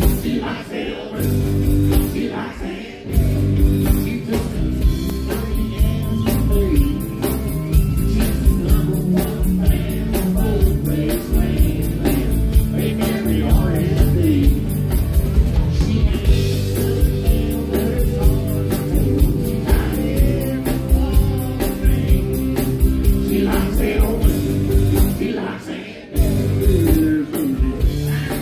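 Live country music: a man singing with acoustic guitar accompaniment.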